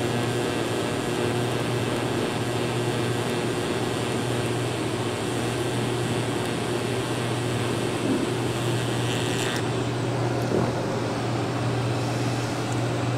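TIG welding arc hissing steadily over a constant low hum as a roller camshaft lobe is built up with filler rod. The arc stops about ten seconds in and the hum carries on.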